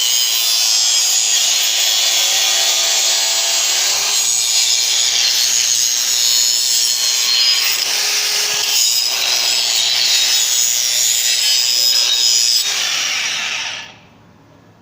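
DeWalt DCG414 cordless 125 mm angle grinder running at full speed, its disc grinding down steel weld seams: a harsh, steady grinding hiss over a constant motor whine. Near the end the trigger is released and the grinder winds down to a stop.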